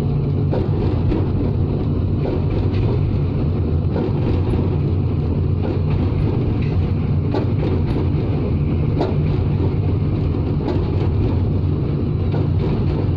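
Diesel-electric locomotive running steadily as the train rolls slowly, heard from the cab, with a few scattered clicks from the wheels and track.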